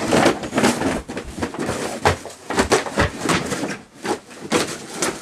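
Plastic snack bags crinkling and rustling as they are kicked and rummaged through, with irregular thumps.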